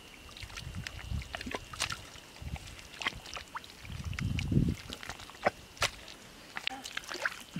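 Bare hands digging into and scooping wet canal mud: irregular squelches and small wet splats throughout, with a heavier run of wet thuds about four seconds in.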